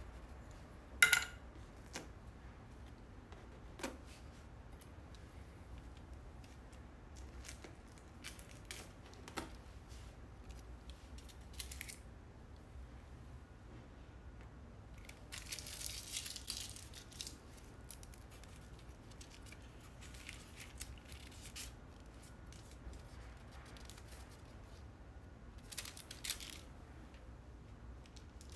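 Quiet handwork at a canvas while gilding: scattered sharp clicks and taps, the loudest about a second in, and two longer rustles of handling, one in the middle and a short one near the end.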